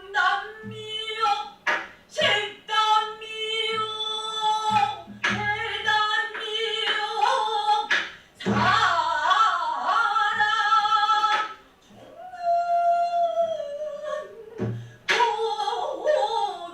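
Pansori singing: a single voice holding long, wavering, bending notes, with short low buk drum strokes beneath it at irregular intervals.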